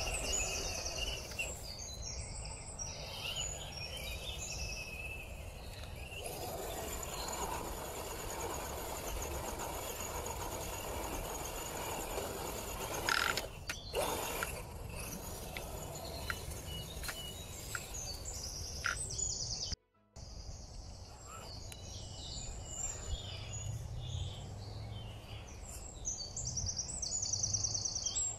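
Outdoor background noise with birds chirping, while a radio-controlled MST CMX Jimny scale crawler drives over loose dirt and gravel, with a few sharp clicks about halfway through.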